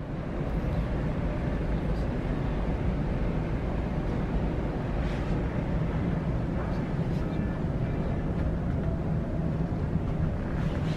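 Steady low rumble of the car ferry Ishikari's engines and shipboard machinery, heard inside the ship.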